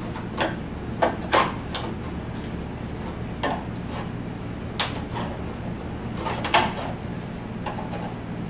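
Trim clips being pried loose from a VW Beetle door: a string of irregular sharp clicks and knocks, the loudest about five and six and a half seconds in.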